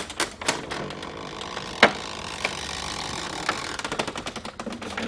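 Canon MP890 inkjet printer's mechanism running with a steady whirr and scattered clicks, one sharp click about two seconds in, just after its lid is shut on a newly fitted ink tank.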